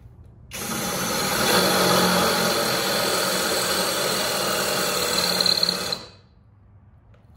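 SKIL PWRCore 20 brushless 20v cordless drill driver boring a hole into a brick, running steadily for about five and a half seconds before stopping. Its battery is on its last bar and nearly flat.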